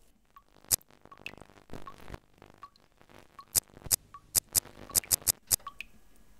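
About ten sharp percussive hits, sparse at first and coming thick and fast in the second half, over water dripping steadily a little faster than once a second.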